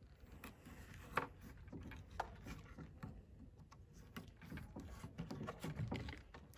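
Knife blade sawing and scraping at the plastic hull of a 12-gauge rubber two-ball shotgun shell on a wooden cutting board. It is faint: a few light clicks in the first couple of seconds, then a run of short scraping strokes in the second half.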